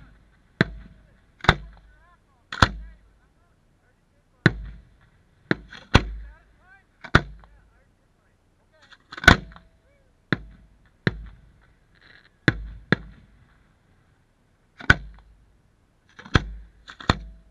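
Aerial fireworks shells booming: about sixteen sharp bangs at irregular spacing, some in quick pairs, each followed by a short fading tail, the loudest about halfway through.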